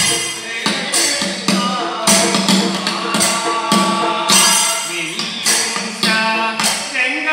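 Live Kanniyarkali folk music: a group of men sing a chanting song over drum beats and jingling percussion strokes, about two a second.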